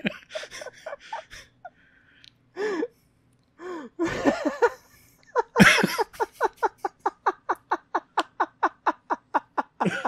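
A person laughing hard: a few breathy gasps and sounds, then a long run of rapid, evenly spaced laughs at about five a second through the last four seconds.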